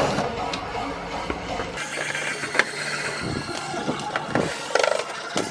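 Ryobi cordless drill/driver driving screws into a car's widebody fender, running in short bursts among scattered clicks and knocks of handling.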